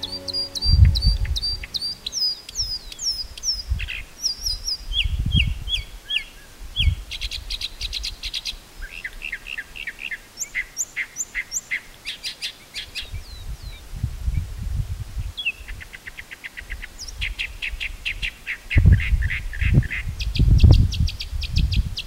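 A mockingbird singing a long, varied song: a string of different phrases, each a whistled slur, chip or quick trill repeated several times before it switches to the next. Intermittent low rumbles come and go under the song and are loudest near the end.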